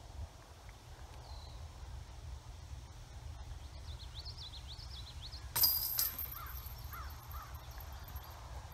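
A thrown XT Whale disc golf putter strikes the metal chains of a disc golf basket about five and a half seconds in: one sharp clash and a brief jingle of chains. Birds chirp in the background, and wind rumbles on the microphone.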